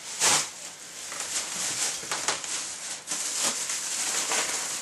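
Rustling and a few light clicks of boxed playing-card decks being handled and shifted around.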